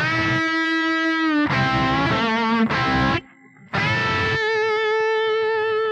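Distorted electric guitar through a Carl Martin Plexitone drive pedal playing a short phrase, with the Carl Martin compressor/limiter bypassed: a held note, a few quicker notes, a brief break, then a long sustained note.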